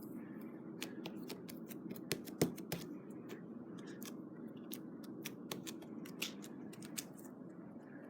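Slime mixed with small foam beads being squeezed and kneaded by hand, giving irregular crackling clicks, several a second, over a steady low hum.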